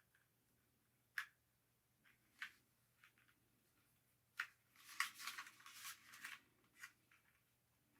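Faint handling of a small plastic remote control dolphin toy and its parts: a few separate sharp clicks, then a busier stretch of scraping and rustling about halfway through, and one more click near the end.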